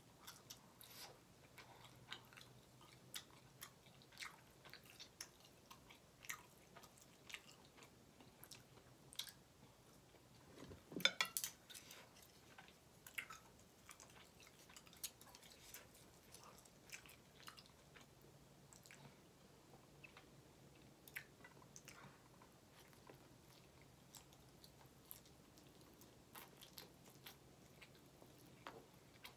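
Close-miked mouth sounds of eating: quiet chewing and lip-smacking on kabob meat and ramen noodles, a string of small wet clicks, louder for a moment about eleven seconds in.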